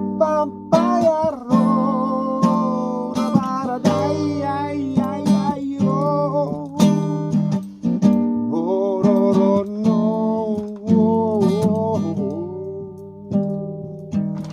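Acoustic guitar being strummed, with a voice singing a sliding melody over it.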